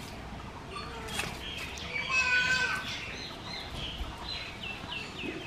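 Birds calling and chirping, with a louder call about two seconds in and a quick run of short repeated chirps near the end.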